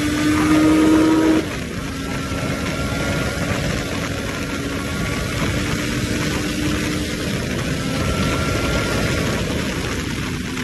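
Kawasaki ZX-14R's inline-four engine under way with wind rush. The engine note climbs slightly, then drops suddenly in pitch and loudness about a second and a half in and settles into a steady cruise.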